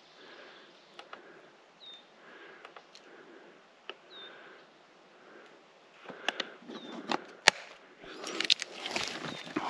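A bird giving a short, high call about every two and a half seconds over a quiet background. From about two-thirds of the way in, footsteps crunching through leaf litter and brush start up with a sharp snap or two and grow louder near the end.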